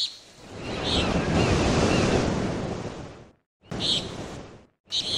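Nature soundtrack: a rushing swell of surf that rises and then fades, with a few short bird chirps over it. The sound cuts out abruptly twice, in the middle and near the end.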